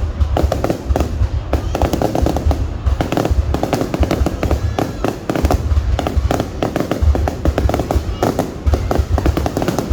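Fireworks going off nonstop: a dense crackle of rapid pops over a continuous low rumble.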